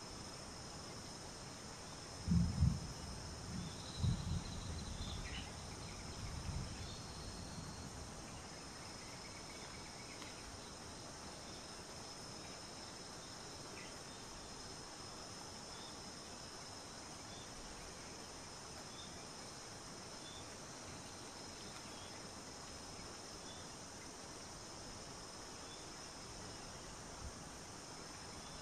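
Steady high-pitched chorus of insects, with a few low dull thuds between about two and seven seconds in and faint short chirps now and then.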